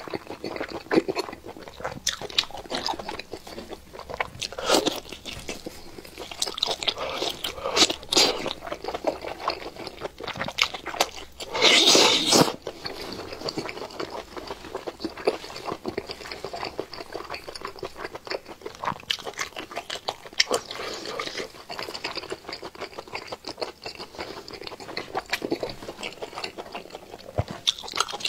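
Eating sounds from a whole cooked octopus: repeated biting and chewing, with many short wet clicks and one louder, longer noise about twelve seconds in.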